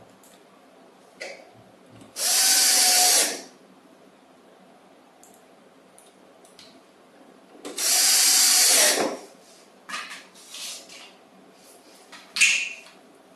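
Cordless drill-driver run in two bursts of about a second each, driving screws into the plastic tricycle body, its motor whine bending as it loads. A few light knocks and a sharp click follow near the end as the plastic parts are handled.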